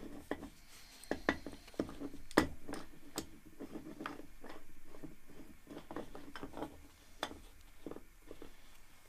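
Steel C-clamp being screwed down by its T-handle on a steel workbench: an irregular scatter of small metallic clicks and knocks, with one louder knock about two and a half seconds in.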